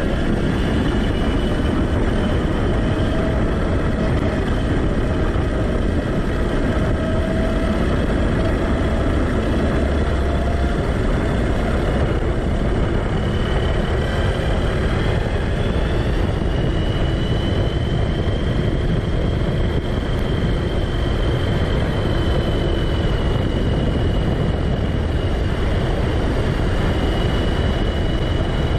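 Arrma Kraton 6S electric RC car at speed, heard from a camera mounted on it: the brushless motor and drivetrain whine over a loud rush of tyre and wind noise. The whine climbs a little in pitch past halfway as the car speeds up.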